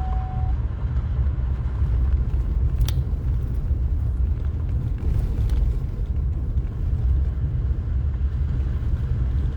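Steady low rumble of a vehicle's engine and tyres heard from inside the cab while driving, with a faint click or two.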